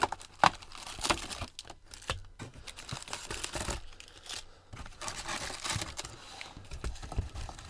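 Foil wrappers of baseball card packs crinkling as they are handled, with scattered taps and clicks.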